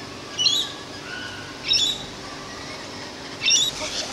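Rainbow lorikeet giving loud, shrill screeches, three in a row about a second and a half apart.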